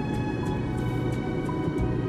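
Instrumental film-soundtrack music: held sustained chords with a soft high tick repeating about three times a second.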